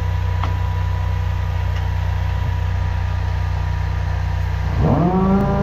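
High-pressure drain jetter's engine running at a steady idle, then revving up quickly near the end and holding at a higher speed.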